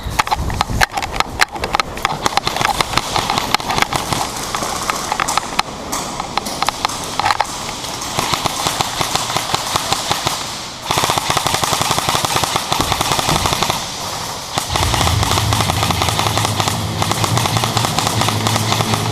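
Airsoft guns firing in rapid full-auto bursts, several at once, a dense clatter of shots. The firing grows near-continuous about eleven seconds in, and a steady low drone joins near the end.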